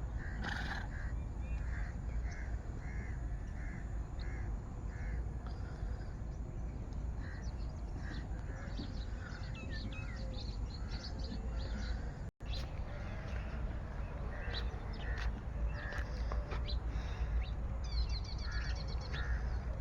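Crows cawing in a repeated series, about two caws a second, with smaller birds chirping faintly and a steady low background rumble.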